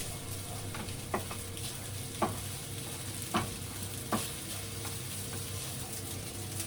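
Garlic rice sizzling as it is stir-fried in a pan, with a steady frying hiss. A utensil knocks against the pan four times, about once a second.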